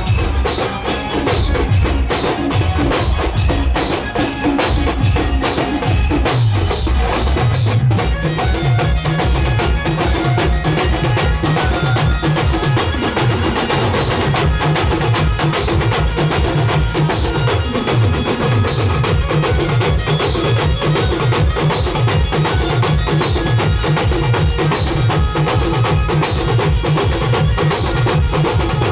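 Loud Timli band music: fast, dense drumming with heavy bass-drum strokes, and a short high note repeating over the beat.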